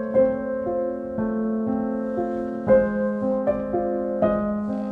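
Background music: soft piano, single notes and chords struck at an easy pace and left to ring.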